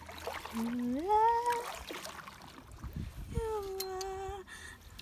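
A woman's voice in two long drawn-out notes, the first sliding upward and then held, the second held steady about two seconds later, with a canoe paddle splashing in the water between them.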